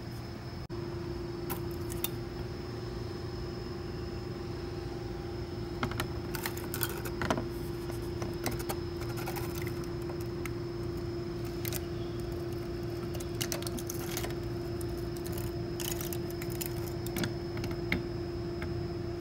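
Scattered light metallic clicks and clinks, like small metal parts and hand tools being handled, over a steady hum.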